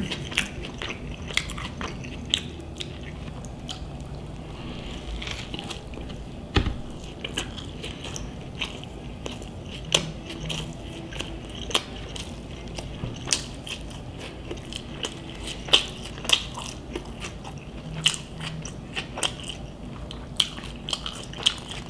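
Close-miked chewing of a bite of Burger King's Impossible Whopper: wet mouth clicks and crunching at an irregular pace.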